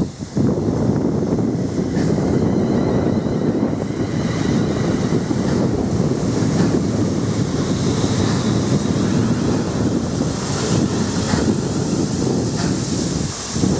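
A train passing at speed, a steady rumbling roar with wind buffeting the microphone.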